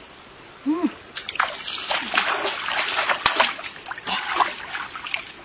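Hands splashing and sloshing in shallow stream water, an irregular run of small splashes that starts about a second in.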